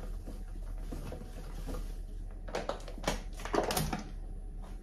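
Soft dough being mixed and kneaded by hand in a bowl, with a few short knocks and rustles clustered between about two and a half and four seconds in.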